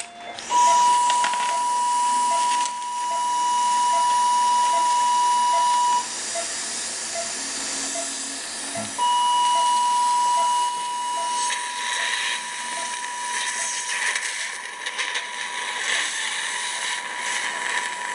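Electrosurgical diathermy unit's steady high activation tone while bleeding points are cauterised for haemostasis, held for about five seconds, then starting again about nine seconds in. A hiss joins in during the second half.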